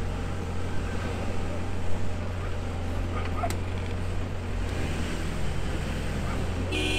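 Heavy diesel engines of a backhoe loader and tractor running steadily under load, hauling a motorhome stuck in deep mud. A low, even engine drone holds throughout, and a brief tonal blip comes just before the end.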